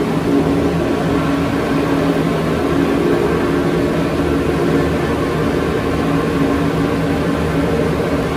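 A My Collector bag-type dust collector running: its motor and fan give a steady hum with several held low tones under an even rush of air.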